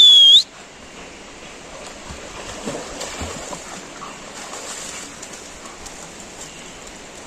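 A single loud whistle, rising then held for under a second, right at the start. Then the steady sound of creek water, with some splashing about two to three seconds in as dogs swim and wade.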